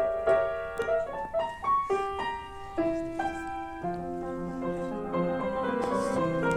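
Solo acoustic piano playing classical music: a quick run of separate notes, then lower, held and repeated notes from about four seconds in.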